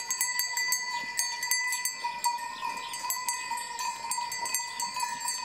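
Many sheep bells clinking and ringing irregularly, overlapping into a steady ring, as grazing sheep move their heads.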